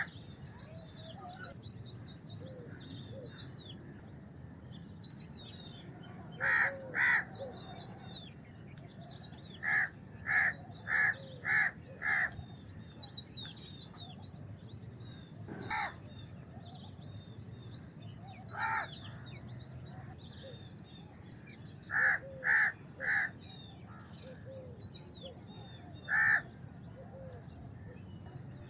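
House crows cawing in spaced groups of harsh calls: a pair, then a quick run of five, single caws, and a run of three, over continuous high chirping of many small birds.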